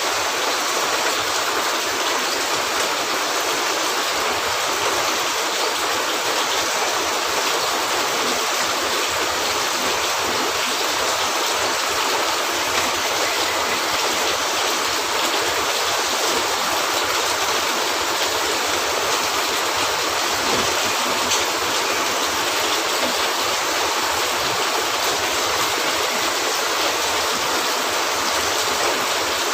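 Steady rain falling on a cabin roof, an even hiss that does not let up, with a few faint pops from a crackling wood fire.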